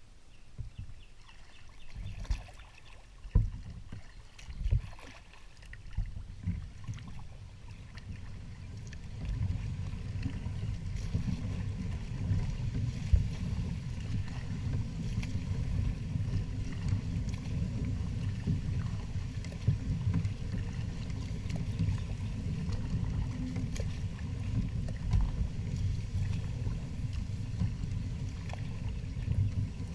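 Kayak hull pushing through dense lily pads: a few separate knocks on the hull early on, then from about nine seconds in a steady low rubbing rumble as the leaves and stems drag along the hull.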